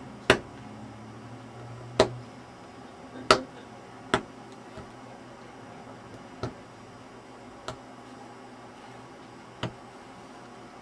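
Carving knife making straight up-and-down cuts into a block of dental carving wax, a sharp click as each cut snaps a chip of wax away. Seven cuts at uneven intervals; the first three are the loudest.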